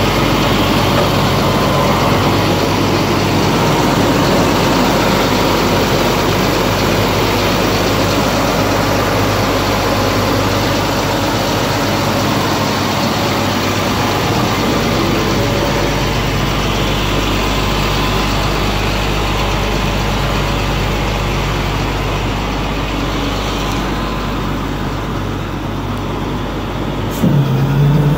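Heavy tow truck's engine idling steadily close by. About a second before the end a sharp click comes, and a low steady hum steps up in level.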